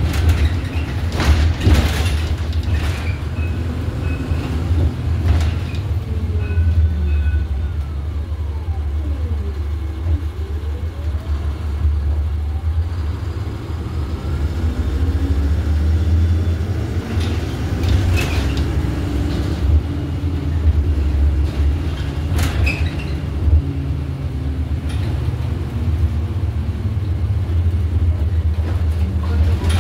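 Iveco Urbanway city bus heard from inside the passenger cabin while under way: a steady low drivetrain rumble with occasional knocks and rattles, and a whine that falls in pitch about ten seconds in and rises again a few seconds later as the bus's speed changes.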